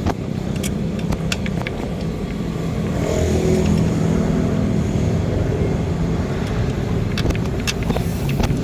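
A car engine running steadily, getting a little louder about three seconds in, with scattered light clicks over it.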